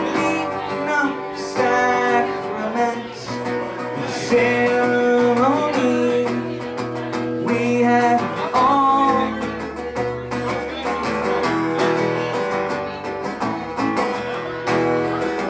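A man singing while strumming an acoustic guitar; the voice drops out a little past halfway and the guitar plays on alone.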